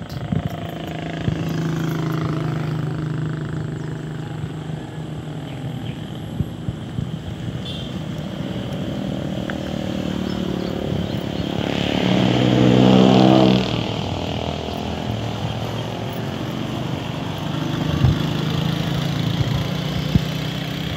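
Road traffic: engines of passing motor vehicles running over steady road and wind noise, with one vehicle passing close and loud about twelve seconds in.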